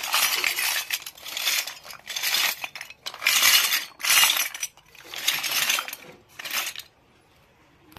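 Small steel toy pots, plates and cups clattering and clinking as a hand shuffles through a pile of them, in about seven short bursts that stop near the end.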